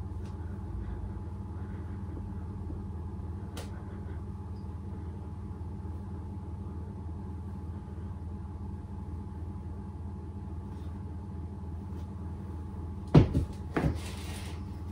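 Steady low room hum while a paper bag of plain flour is tipped over a mixing bowl. Near the end come a sharp knock, a second smaller knock and a brief papery rustle.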